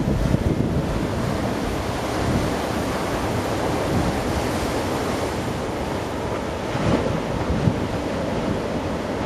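Ocean surf: waves breaking and washing in as a steady rush of noise, with wind on the microphone.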